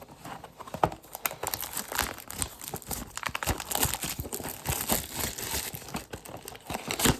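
Plastic trading-card packaging crinkling and tearing as it is opened, in a dense run of irregular crackles.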